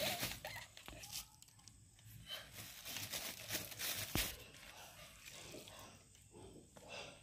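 A steel serving spoon scooping khichdi from a metal pot and dropping it onto paper plates, the plates rustling under the food, with a couple of sharp clicks of the spoon. Faint voices in the background.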